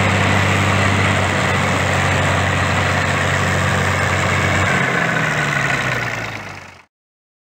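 Heavy diesel engine idling steadily with a low drone, its note shifting slightly about five seconds in; the sound fades out shortly before the end.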